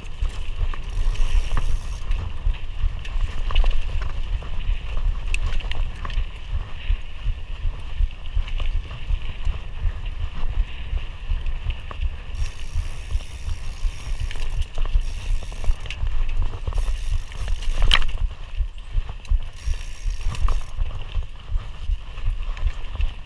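Mountain bike being ridden over a cross-country dirt trail: a constant low rumble with many small rattles and clicks as the bike jolts over the ground. One sharp clack comes about three-quarters of the way through.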